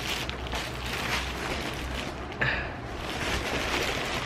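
Clear plastic wrapping and a black plastic bag crinkling and rustling as they are handled, with a sharper, louder crackle about two and a half seconds in, over a steady low hum.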